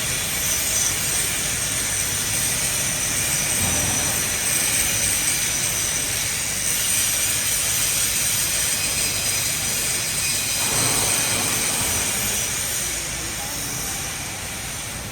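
Hydraulic metal baler running: a steady mechanical drone with a strong hiss, easing off slightly near the end.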